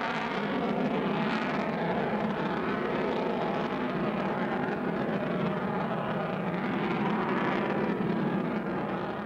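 F-22 Raptor fighter jet's twin turbofan engines running loud and steady as it passes overhead, easing off slightly near the end.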